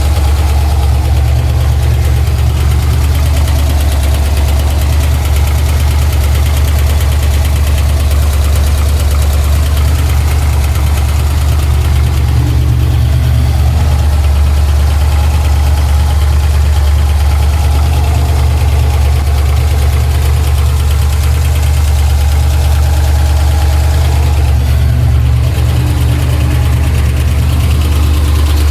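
Pontiac Trans Am engine idling steadily with an odd ticking that has turned into a deeper knock heard all around the engine. The owner fears a major internal part, perhaps the crankshaft, rather than the exhaust or a lifter.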